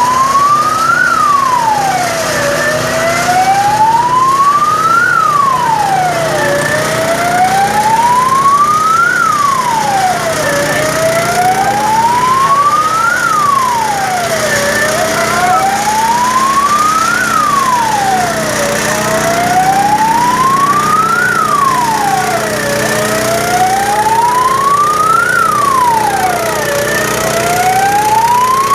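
Fire engine siren in a slow wail, rising and falling about every four seconds. A second, fainter siren wails alongside it at a higher pitch.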